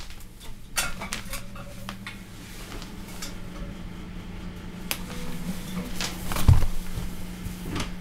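Handling noise: scattered clicks and knocks, with one low thump about six and a half seconds in, over the steady low hum of the idle guitar pedal rig.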